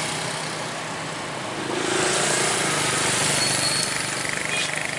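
Road traffic passing close by: a large vehicle's engine and tyre noise, swelling about two seconds in, with no horn melody.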